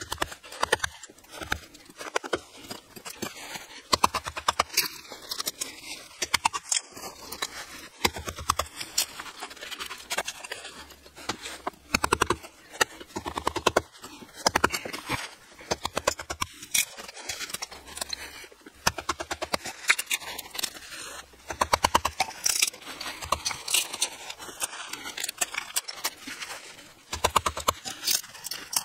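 Hammer striking a chisel, chipping crumbly concrete away from a wooden block set in a wall: quick runs of sharp metallic taps with short pauses between them, over the crunch of falling debris.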